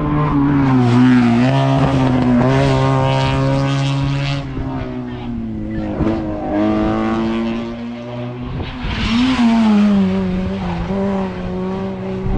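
Hillclimb race car engine at full throttle, revving hard and shifting up through the gears: its pitch drops at each change and climbs again, about a second in, around six seconds in and again near nine seconds.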